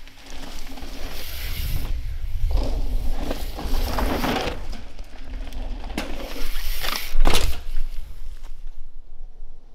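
Mountain bike tyres rolling and crunching over a loose dirt trail as the rider corners past, with a low rumble underneath. The noise swells and fades several times and is loudest in a sudden burst about seven seconds in.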